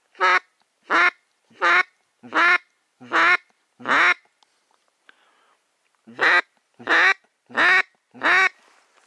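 Ten loud, evenly spaced duck quacks, about 0.7 s apart, in two runs: six, a short pause near the middle, then four.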